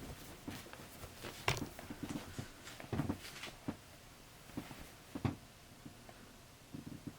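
Handling noises as things are unpacked: irregular taps, clicks and short rustles, the loudest about a second and a half in and again about three seconds in.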